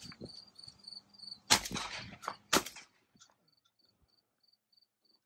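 Two shotgun shots about a second apart, the first ringing on briefly, over crickets chirping in a steady pulse.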